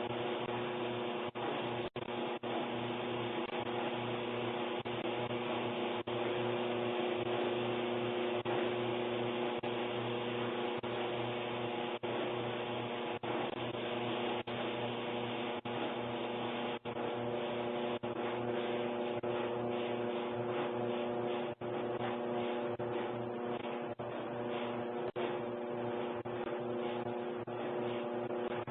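Electrolux-built Kenmore Elite clothes dryer running with a loud, steady mechanical drone made of several held tones.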